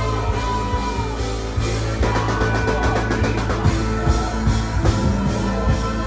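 Rock music with drum kit and guitar, played loud; the drumming gets busier about two seconds in.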